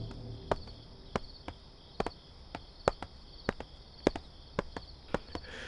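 Footsteps on a hard floor, sharp single steps about two a second, over a steady background of crickets chirping.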